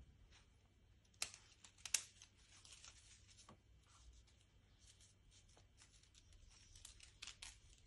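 Faint clicks and light rattling of wooden craft sticks being handled and gathered into a stack, with two slightly louder clicks about a second and two seconds in.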